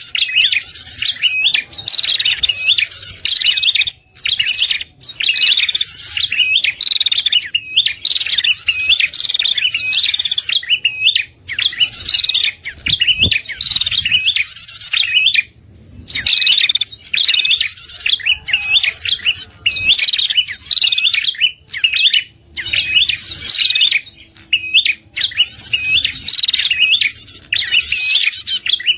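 Prenjak (prinia) song used as a lure call: rapid, high chirping phrases of hooked, sweeping notes repeated over and over, with short pauses every second or two.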